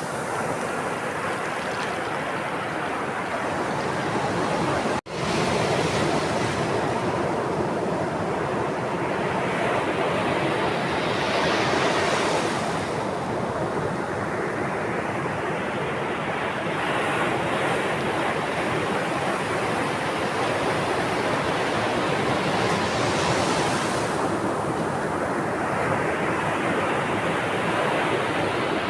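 Sea waves on the shore: a continuous wash of surf, swelling as waves break twice, about ten seconds apart. There is a split-second dropout in the sound about five seconds in.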